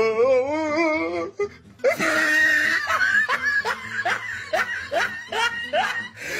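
A drawn-out, wavering vocal cry for about the first second, then loud laughter in short repeated bursts.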